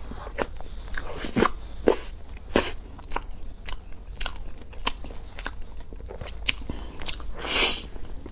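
Close-miked crunching and chewing of a golden-crusted deep-fried food. Sharp crackly crunches come throughout, the loudest about one and a half and two seconds in, with a longer, louder crunching bite near the end.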